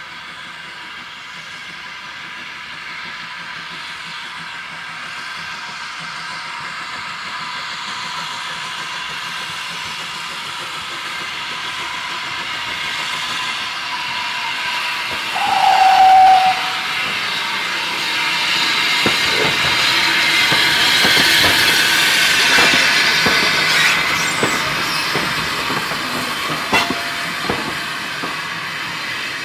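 Steam train approaching and passing, with a hiss of steam that grows steadily louder. The locomotive gives one short whistle about halfway through. In the second half the wheels click rapidly over the rail joints as the carriages go by.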